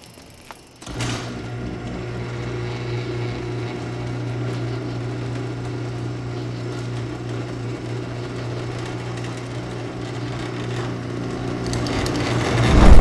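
Electric garage door opener running as the overhead door rolls shut: a steady mechanical hum that starts abruptly about a second in. A loud low rumble swells in near the end.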